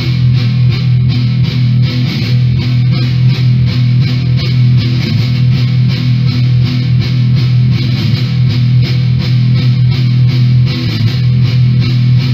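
Background rock music with distorted electric guitar and a steady beat.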